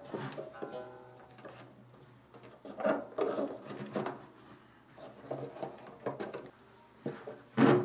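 Hands handling the silk strings and coiled string ends of a gayageum, with scattered soft knocks and rubbing against the wooden body. A plucked string rings and fades out in the first second.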